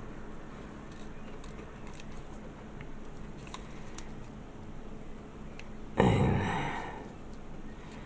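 Quiet handling of masking tape and a plastic model kit part: faint small ticks and rustles as the tape is pressed along the hull. About six seconds in comes one louder, noisy scrape that fades over about a second.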